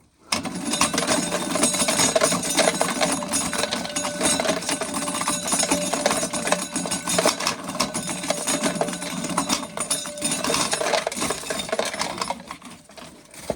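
Corn sheller running as an ear of corn is fed through, with a dense, continuous rattle and clatter of kernels and mechanism. It starts about a third of a second in and fades near the end.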